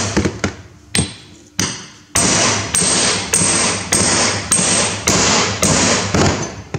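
Hammer blows on a flat driver plate, knocking a new oil seal into a Massey Ferguson 135 rear axle housing, each blow ringing briefly. A few spaced taps come first, then from about two seconds in a steady run of harder blows, nearly two a second.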